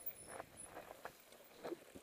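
Mountain bike rolling down a forest trail: tyres crackling over the dirt and leaf litter, with scattered knocks and rattles from the bike, the sharpest near the end.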